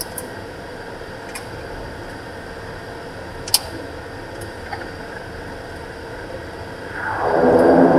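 Beechcraft King Air's twin turboprops heard from the cockpit, first as a steady hum at low power with a sharp click about three and a half seconds in. Near the end the engine and propeller sound rises sharply and quickly as power is applied.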